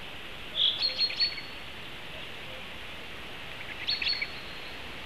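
A small songbird singing two short phrases about three seconds apart, each a clear high note followed by a few quick notes, the second phrase fainter. Behind it is a steady outdoor hiss.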